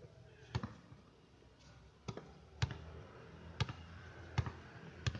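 A basketball bouncing on a hard outdoor court: six sharp thuds at uneven intervals, roughly one a second.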